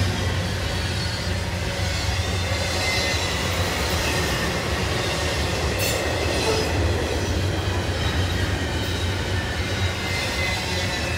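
Double-stack container well cars of a freight train rolling past at close range: a steady rumble of steel wheels on the rails with a thin, faint wheel squeal, and one brief sharp knock about six seconds in.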